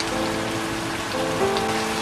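Soft background music of sustained notes changing about every half-second to second, over a steady, crackly hiss.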